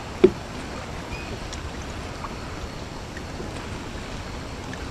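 Water lapping against a fishing boat's hull, a steady wash, with one sharp knock about a quarter second in.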